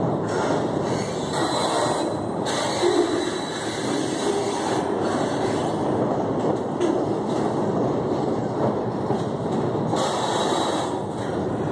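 Heavy freight cars of an oversize-load train rolling across a steel girder trestle: a steady rumble and rattle of wheels on rail, with faint wheel squeals now and then.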